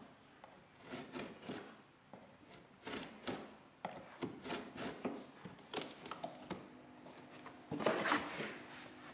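Knife cutting and scraping a spruce-root lashing against the wooden gunwale of a bark canoe: irregular small scrapes, clicks and light knocks. About eight seconds in comes a louder rustling knock.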